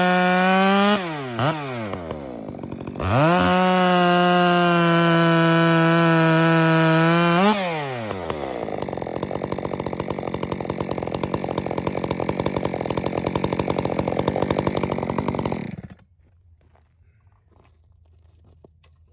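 Stihl chainsaw revved to a steady high-pitched wide-open throttle, let off and blipped, then held wide open again for about four seconds. It then drops to a rough, rhythmic idle for about eight seconds and is shut off about 16 seconds in, leaving near silence.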